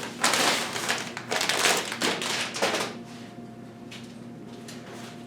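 Rustling and light tapping of PC parts and packaging being handled, for about three seconds.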